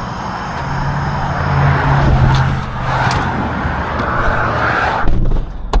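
Motor vehicle running: a steady engine hum under an even rushing noise, which cuts off suddenly about five seconds in, followed by a sharp click.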